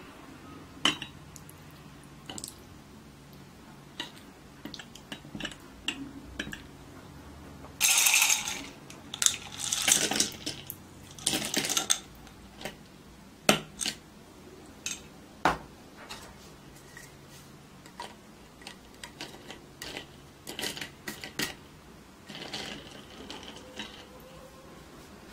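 Ice cubes clattering out of a tilted glass into a glass carafe of milk tea, in three short noisy pours about a third of the way in. Light clinks of ice against glass are scattered before and after, and near the end a straw stirs the drink with soft clinks.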